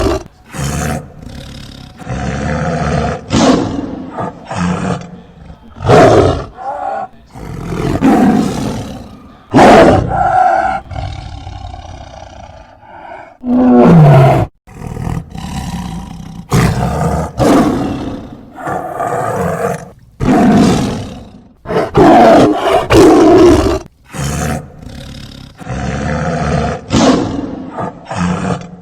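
A tiger roaring and growling again and again: loud roars every second or two, with lower growls between them.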